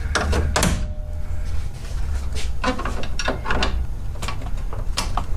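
Plastic push pins and clips on a 2018 Chevy Silverado's grille being worked loose and pulled out by hand: a series of sharp plastic clicks and rattles.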